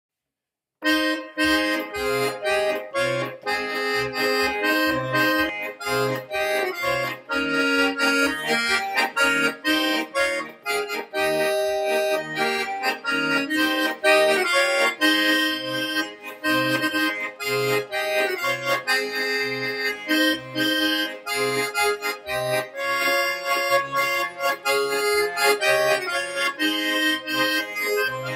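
Beltuna chromatic button accordion playing a tune, melody and chords over a steady pulse of bass notes, starting about a second in.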